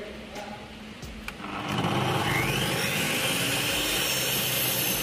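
Electric miter saw starts about a second and a half in, its motor whining up in pitch to full speed, then running steadily.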